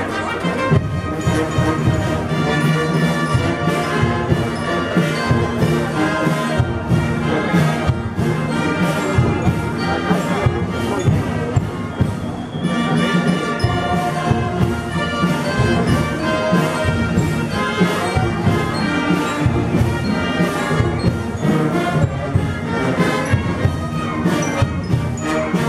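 Procession brass band playing a processional march: full brass chords over a steady drum beat, with a brief break in the phrase near the middle.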